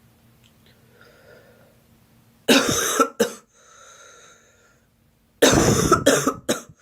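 A girl coughing in two fits: a hard cough about two and a half seconds in, followed by a short second cough. Then a faint breath, and near the end a longer run of several coughs in quick succession.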